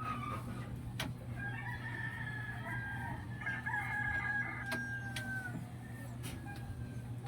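A rooster crowing once, a long call that drops in pitch at its end, over a steady low hum, with a few sharp clicks.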